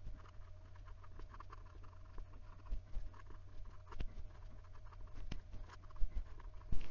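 Fine nib of a Penbbs 480 fountain pen writing cursive on notebook paper: a continuous run of soft, irregular scratches and small ticks following the pen strokes, over a faint steady hum.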